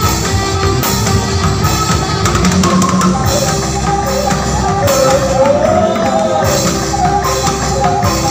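Background band music with a drum kit keeping a steady beat; a bending lead melody line stands out about five seconds in.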